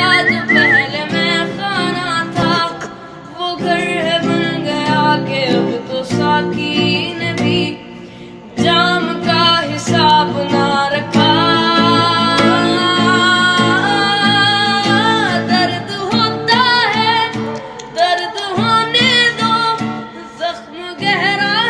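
A song with a melodic singing voice over plucked guitar accompaniment.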